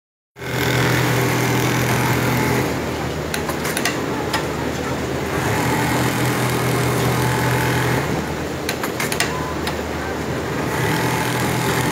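Large-format programmable sewing machines running, a steady motor hum that swells in three long stretches and eases between them. Several sharp clicks fall in the lulls.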